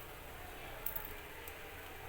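A few light clicks, two close together about a second in and one more shortly after, over a steady low hum.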